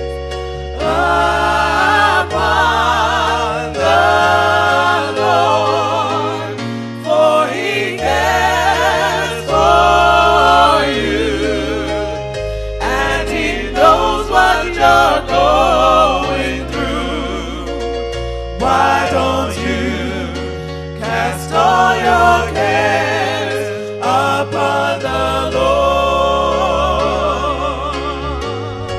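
Gospel song: singing voices with vibrato over instrumental backing with a low bass line moving from note to note.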